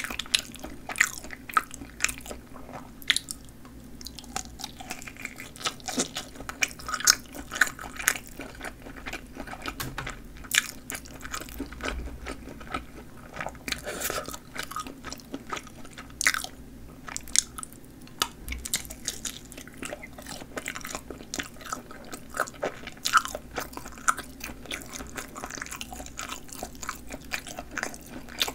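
A person chewing bites of sausage with a snappy casing: repeated wet chewing with many small crunches and clicks.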